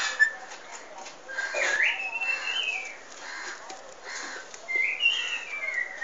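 Pet myna whistling: a few whistled calls that glide up and down in pitch, the clearest about two seconds in and again near the end, with a sharp click just after the start.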